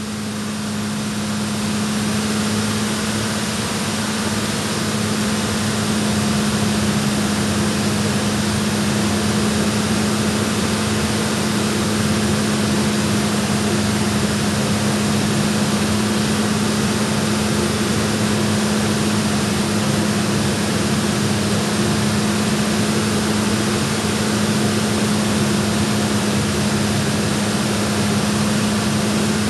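HHO (oxyhydrogen) torch flame hissing steadily while it cuts through a 1/4-inch mild steel rod, with a steady low hum underneath throughout.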